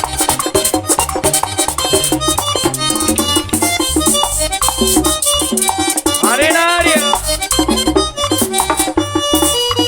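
Merengue típico band playing at a fast pace: accordion lead over rapid percussion and a pulsing bass, with one pitched glide that rises and falls about six and a half seconds in.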